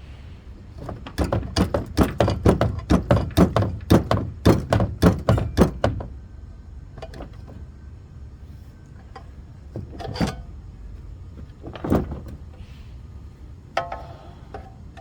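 A quick run of sharp metal-on-metal blows, about four a second for some five seconds, as a homemade pulley puller works a stuck pulley off a heater's motor shaft. Two single knocks follow later.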